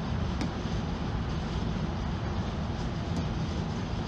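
Steady low rumbling background noise, with a couple of faint clicks.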